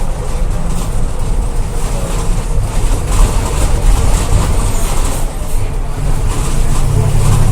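Wheels of a Mercedes-Benz bus at high speed, a steady low drone from the wheel bearings over the road rumble. It is a typical wheel-bearing problem, which the owner considers harmless to the bus.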